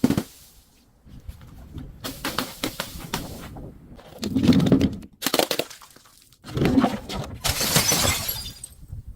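A glass bottle shattering and being crushed, in several bursts of crunching and crackling glass, with dull thuds about four and a half and seven seconds in.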